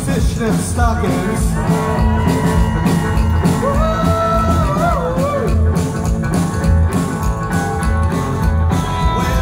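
Rockabilly trio playing live: electric guitar over upright bass and drums, with a steady beat. Held, bending guitar notes sit in the middle.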